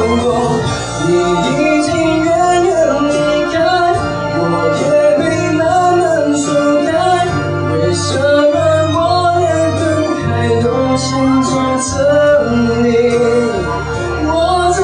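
Male voice singing a Mandarin pop ballad live into a microphone over continuous backing music.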